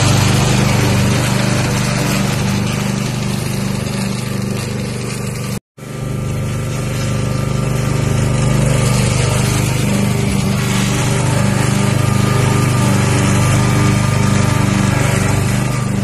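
Stiga ride-on lawn tractor's engine running steadily under load while mowing grass. The sound drops out completely for a moment about five and a half seconds in, then carries on.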